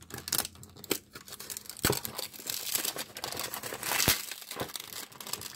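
Small paperboard retail box being opened by hand: scraping and crinkling of the packaging as the box is slid apart, with scattered small clicks and two sharper knocks, about two and four seconds in.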